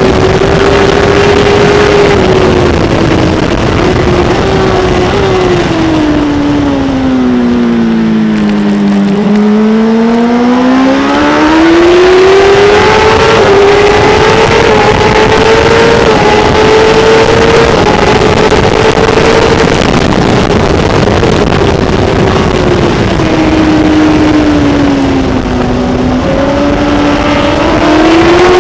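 Kawasaki ZX-10R superbike's inline-four engine running at high revs under race conditions, with wind rush over the onboard camera. Engine speed sinks steadily for several seconds, picks up again about ten seconds in and holds high, then dips once more and climbs near the end.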